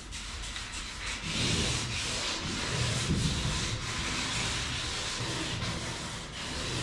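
Hand-sanding the glossy finish on the hull of a wooden strip canoe with a hand pad: a scratchy, hissing rub in quick back-and-forth strokes, about two a second.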